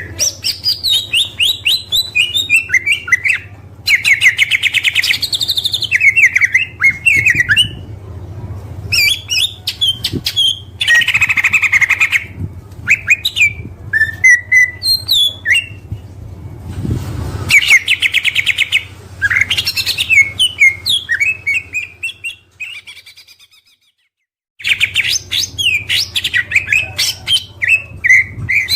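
Oriental magpie-robin (kacer) singing a loud, varied song of rapid whistles, trills and chattering bursts, over a faint low steady hum. The song breaks off into silence for about two seconds near the end, then resumes.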